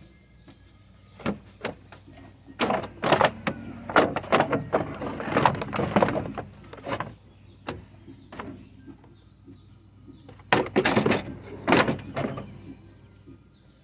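Irregular knocking, scraping and rattling of parts being handled and moved in a car's engine bay, in two bouts: a longer one in the first half and a shorter one near the end.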